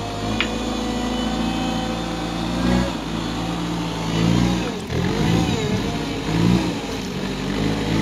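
Hidromek 62SS mini backhoe loader's diesel engine running. The engine holds steady for about three seconds, then dips and picks up again several times as the operator works the controls.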